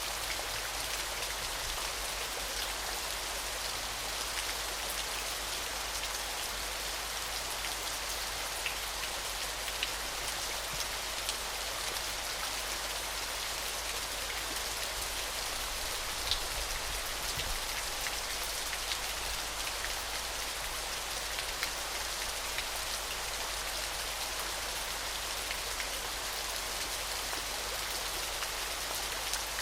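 Steady splashing water with a fine, hissy patter of many small droplet ticks, even and unbroken.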